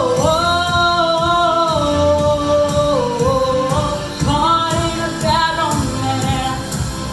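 A woman singing long, held notes that slide up and down in pitch into a handheld microphone, over a backing track with a steady beat.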